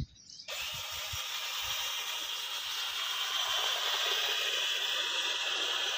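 Model tractor trolley's hydraulic tipper raising its bed as the sand load slides off, heard as a steady hiss that starts abruptly about half a second in and grows slightly louder.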